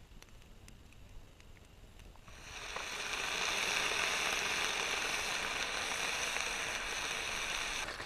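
Ham slices sizzling in a frying pan. The sizzle starts about two seconds in, after a few faint campfire crackles, holds steady, and cuts off suddenly near the end.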